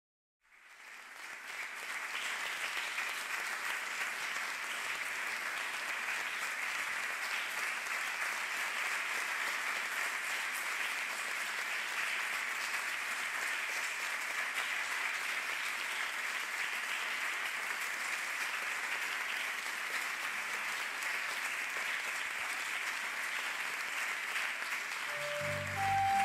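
Theatre audience applauding steadily, swelling in over the first two seconds. Near the end the live ensemble begins to play.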